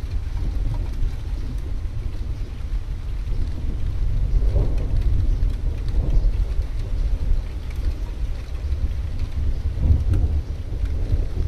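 Thunderstorm ambience: a continuous low rumble of distant thunder and wind, swelling about halfway through and again near the end, with a light haze of rain.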